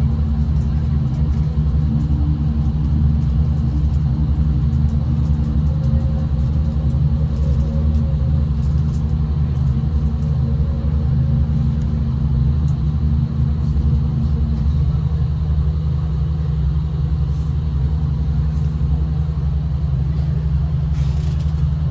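V/Line passenger train running, heard from a passenger's seat as a steady low rumble with a constant engine hum. One strand of the hum drops away about two-thirds of the way through.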